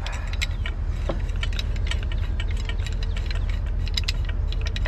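Irregular light metallic clicks and ticks of a pipe wrench being fitted and worked on a stuck part that will not turn, over a steady low rumble.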